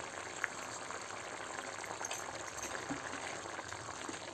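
Watery potato-and-green-pea curry bubbling in a pot on the gas stove as it is stirred with a steel ladle, with a light click about half a second in.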